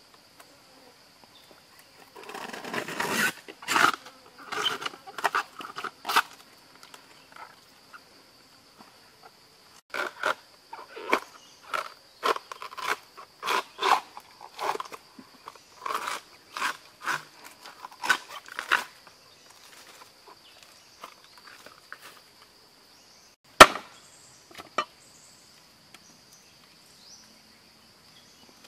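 Short crackling, tearing strokes from a banana tree trunk as its layers are worked apart by hand, in two bursts, over a steady high insect drone. Near the end come two sharp knocks about a second apart.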